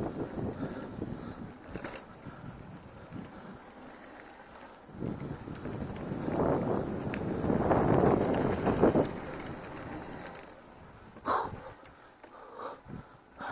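Mountain bike riding over a dirt single-track trail: tyre noise and the rattle of the bike over rough ground, growing louder between about five and nine seconds in, then easing off, with a few sharp knocks near the end.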